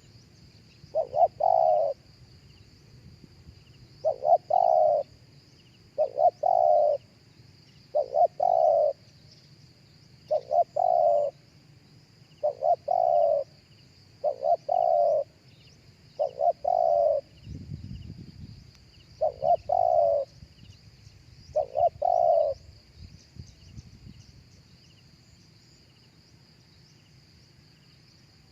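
Spotted dove cooing: ten phrases about two seconds apart, each two short notes run into a longer one. The calling stops a few seconds before the end, leaving a steady high insect drone underneath.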